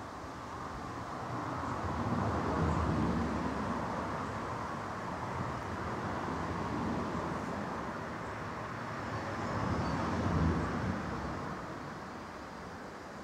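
Outdoor background noise, swelling twice: about two seconds in and again near ten seconds.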